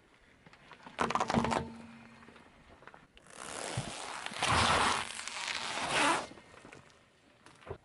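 A car tyre crushing objects: a short crunch about a second in, then a noisy scraping, hissing stretch of about three seconds, loudest in the middle, as the tyre rolls onto a football and squashes it flat.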